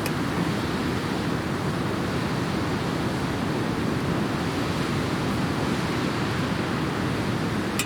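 Steady low rushing noise with no pitch or rhythm, and a few sharp clicks just at the end.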